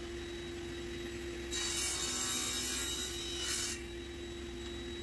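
Table saw running with a steady hum, its blade crosscutting a solid ash leg blank on a crosscut sled. The cut starts about one and a half seconds in and lasts about two seconds, louder and hissier, before the blade runs free again.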